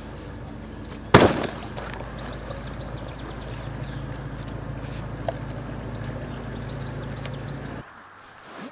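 An inflatable kayak set down onto the water with one sharp slap about a second in, over birdsong and a steady low hum. The background cuts away suddenly near the end.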